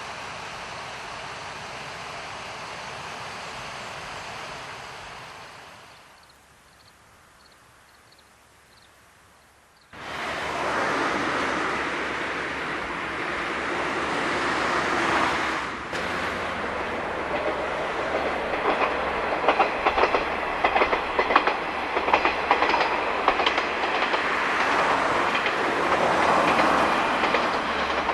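A JR KiHa 40-series diesel railcar passing, its wheels clicking rapidly over the rail joints. The train sound cuts in suddenly about ten seconds in. Before that there is a steady outdoor hiss that fades to a quiet stretch with faint chirps.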